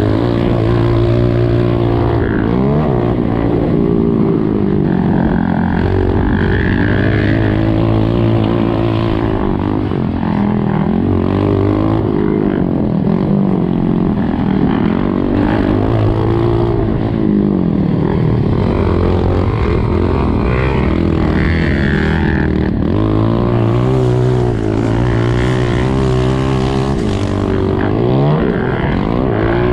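Honda CRF125F's single-cylinder four-stroke engine heard onboard while racing on dirt, its revs climbing and dropping over and over. A second dirt bike runs close ahead.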